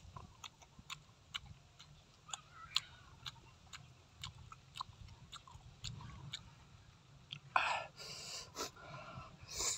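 Close-up mouth sounds of someone chewing grilled squid: irregular wet clicks and smacks. There are two louder hissing bursts, one about eight seconds in and one near the end.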